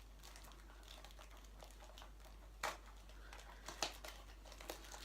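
A box and its packaging being opened by hand: faint rustling and crinkling, with a few sharp clicks, the loudest about two and a half and four seconds in.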